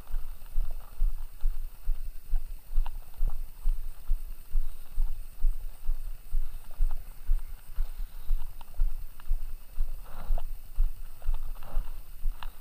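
Wind buffeting the microphone at sea: low, uneven rumbling gusts, with a few faint clicks.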